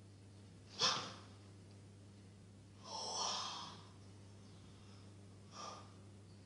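A person's breathy, wordless vocal sounds: a sharp, short breath about a second in, a longer breath around three seconds, and another short breath near the end. A steady low hum runs underneath.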